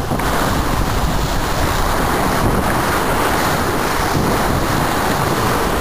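Sea rushing and splashing past a Bull 7000 racing yacht's hull as it sails fast in rough water, with steady wind noise buffeting the microphone.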